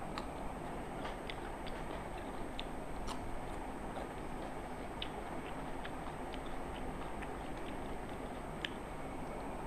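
Two people eating rice and curry by hand, heard as scattered, irregular small clicks and smacks of chewing and of fingers working food on metal plates, over a steady background noise.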